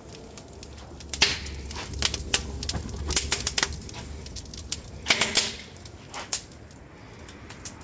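Fire burning in a masonry barbecue grill, crackling with irregular sharp pops, the loudest about a second in and around five seconds in, over a low steady rumble.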